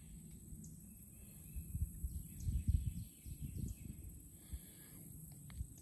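Quiet outdoor ambience with faint, scattered bird chirps and irregular low rumbles from about a second and a half in.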